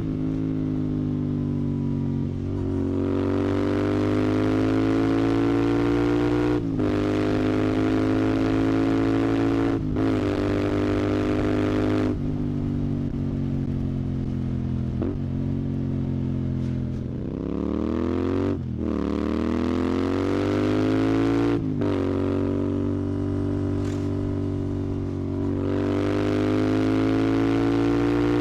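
Royal Enfield Continental GT 650's 648 cc parallel-twin engine through a Red Rooster aftermarket exhaust, accelerating on the road. Its note climbs steadily, breaking off briefly several times at gear changes; about two-thirds of the way through the pitch drops and then climbs again.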